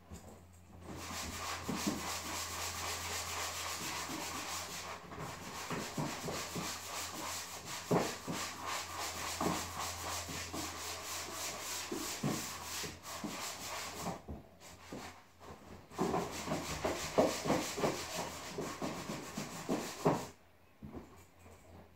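Hand sanding of dried drywall joint compound on a wall: a steady scratchy rubbing with irregular strokes, broken by a short pause about two-thirds of the way through and stopping near the end.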